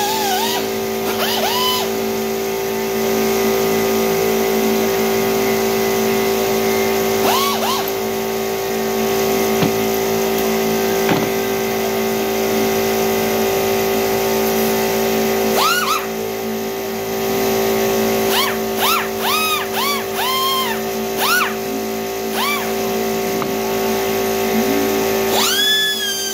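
High-pitched whine of a pneumatic die grinder working the cylinder fins of a Harley-Davidson Evolution V-twin. The grinder is triggered in a run of short bursts, each spinning up quickly, about two-thirds of the way in, and winds up again near the end.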